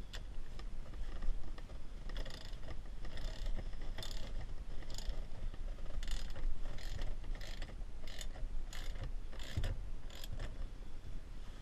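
Hand ratchet clicking in short repeated strokes, about one or two a second, as the loosened steering-wheel bolt is backed off.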